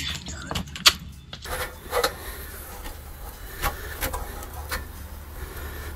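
Tesla Wall Connector pedestal post being handled and set down over anchor bolts on a concrete pad: scattered light knocks and clinks with some rubbing and scraping, about half a dozen separate hits.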